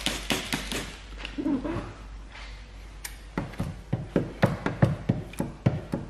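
A trigger spray bottle squirting tack solution in quick pumps for about the first second. About three seconds in comes a run of sharp knocks and thuds as a flexible plastic squeegee presses paint protection film down into a hood-scoop recess.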